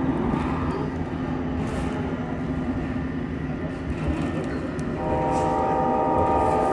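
Siemens S70 light rail car running on the track, a steady rumble heard from inside the car. About five seconds in, a cluster of steady high tones joins in.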